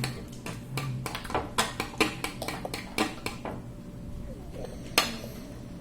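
A utensil clinking against a bowl while stirring the runny slime mixture: quick, irregular taps over the first few seconds, fewer after that, and one sharper knock near the end.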